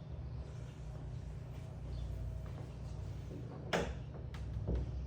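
A carbon fiber hood being handled while its gaps and latch are aligned: one sharp knock about three-quarters of the way in, then two lighter clicks, over a low steady hum.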